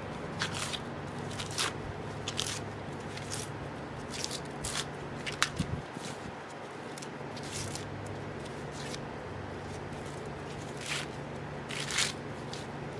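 Ears of fresh sweet corn being shucked by hand: husks torn and peeled back in irregular crackling, ripping rustles. A steady low hum runs underneath.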